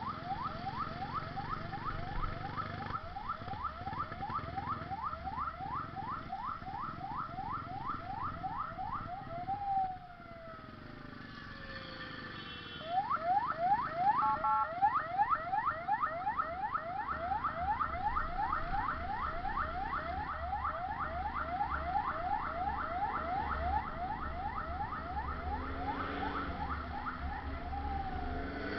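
Ambulance siren in fast yelp mode: a rising sweep repeated about four times a second. About ten seconds in it winds down with a falling tone and drops out for a few seconds, then starts yelping again and winds down once more near the end.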